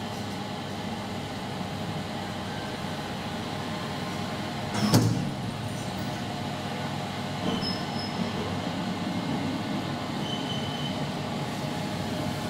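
Traction elevator's doors closing with a single loud knock about five seconds in, then the car travelling with a steady hum and rumble. A few short, faint high tones sound later in the ride.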